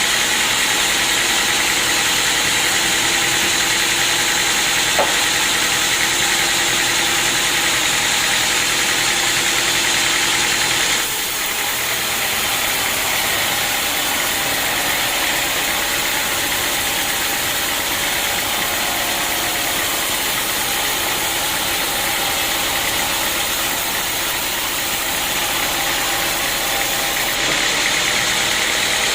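Sawmill machinery running with a steady mechanical noise, the sound shifting abruptly about eleven seconds in and again near the end.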